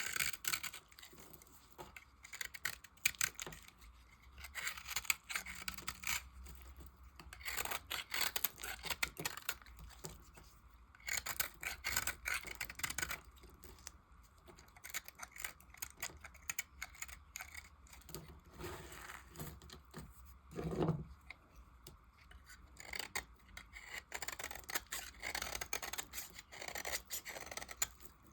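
A blade cutting and scraping through bars of soap: a continuous run of crisp, irregular cutting strokes that crunch and rasp, some louder than others.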